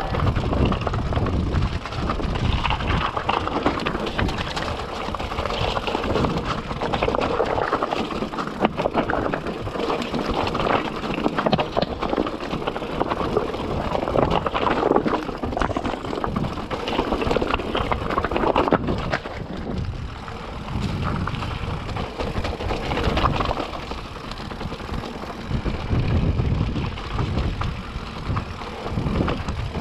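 Electric mountain bike riding fast over a loose rocky trail: tyres crunching on stones and the bike rattling with a constant run of small knocks, over a rumble of wind on the microphone.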